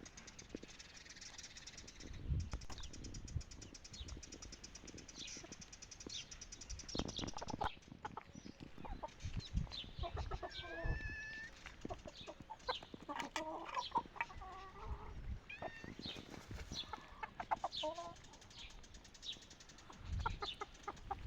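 Chickens clucking in short calls at intervals, with scattered knocks and thumps.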